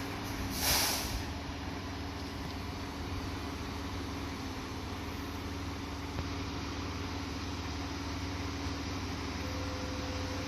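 Fire truck's diesel engine idling steadily, with one short, loud hiss of air brakes under a second in.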